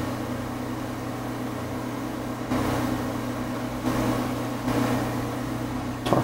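Steady low electrical hum, with a few soft handling noises as a hand wheel is pushed onto a Sherline mill's lead screw and an Allen key is worked at its end screw.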